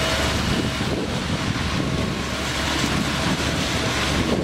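Steady drone of heavy diesel machinery: a truck-mounted concrete boom pump running as it pushes concrete through its hose, with a low, even hum under a wide noisy hiss.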